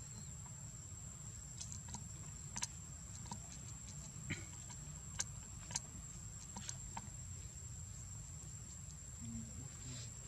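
Forest ambience: a steady high-pitched insect drone over a low rumble, with scattered sharp clicks and ticks.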